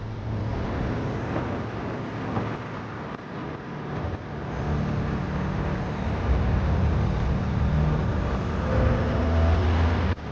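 Road traffic: motor vehicle engines running with steady road noise, a low engine hum growing louder over the second half.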